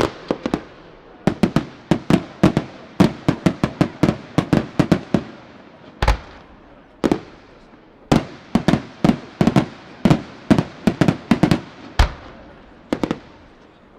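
Aerial firework shells bursting in rapid volleys of sharp bangs. The volleys thin to single heavier bangs about six and seven seconds in, then pick up again into another dense run.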